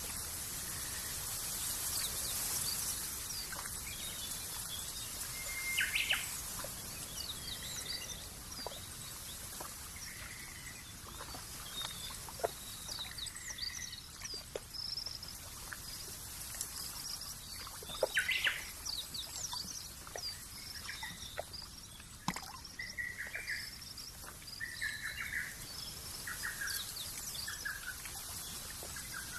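Small birds chirping and whistling in short scattered calls, several birds at once, over a steady background hiss in a nature ambience.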